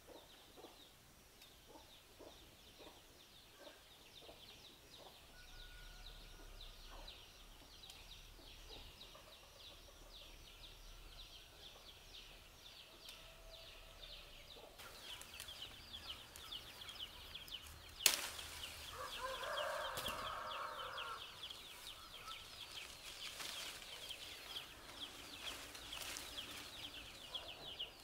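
Quiet rural ambience: a rapid, high chirring runs throughout and grows louder in the second half. About two-thirds of the way through there is a sharp knock, followed by a short call from a fowl.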